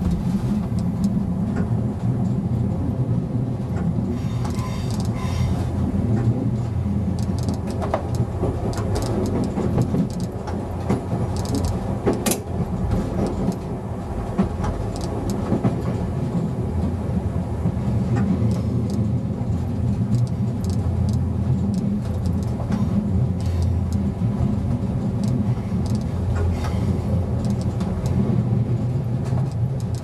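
Czech Railways class 854 diesel train running along the line, heard from the driver's cab: a steady low engine drone with wheels clicking over the rails, and one sharper click about twelve seconds in.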